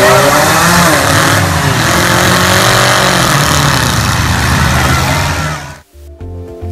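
Loud motor-vehicle engines running and revving amid a noisy crowd; the sound cuts off abruptly about six seconds in and music begins.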